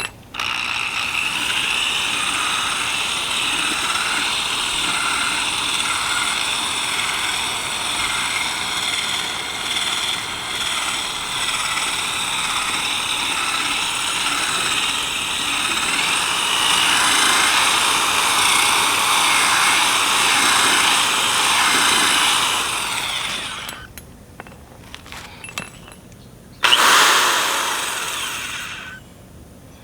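Drill spinning a 3000-grit sanding disc in a steady run as it wet-sands a plastic headlight lens, stopping about three quarters of the way through. Near the end comes a short, loud hiss lasting about two seconds.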